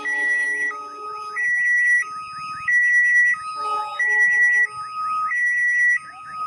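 Railway level-crossing warning alarm sounding a warbling two-tone signal, alternating high and low about every two-thirds of a second: a train is approaching. A lower horn chord sounds briefly twice, near the start and around the middle.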